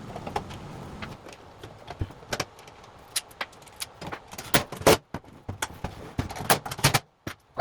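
Scattered metallic clicks, clinks and knocks of hand tools and parts being handled while a Generac GP3250 portable generator is reassembled, with a sharp cluster of them in the second half.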